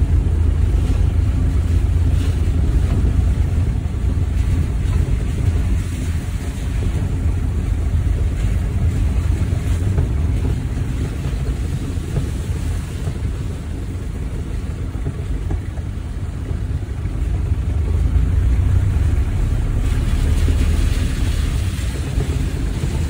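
Hindustan Ambassador car being driven: a steady low engine and road rumble with wind noise.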